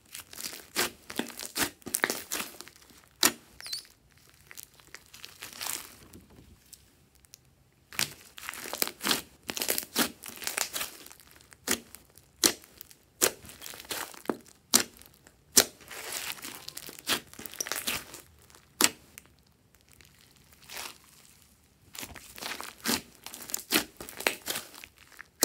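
Hands squishing, stretching and folding a large mass of glossy slime with foam beads mixed in: sticky crackling and sharp popping clicks from air pockets, in clusters with short pauses between handfuls.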